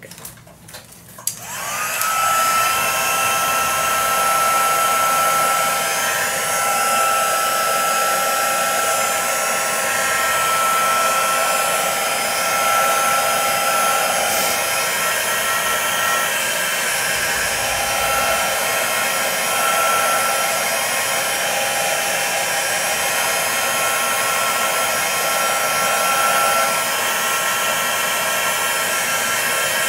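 Handheld craft heat tool switched on about a second in, its motor whine rising quickly and then holding steady with a steady rush of blown air, drying wet watercolour paint.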